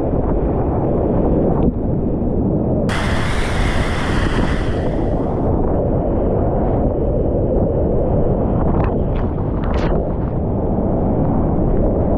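Rushing high-water whitewater and wind buffeting a GoPro's microphone, a loud, dense low rumble. A brighter hiss comes in about three seconds in and fades a couple of seconds later, with a few short sharp sounds near the end.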